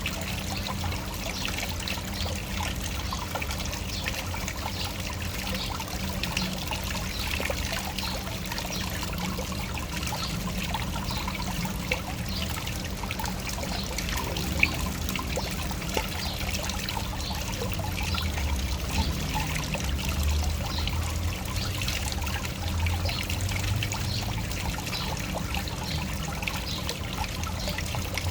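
Small waterfall: water pouring and splashing steadily, with many small splashes over a low rumble.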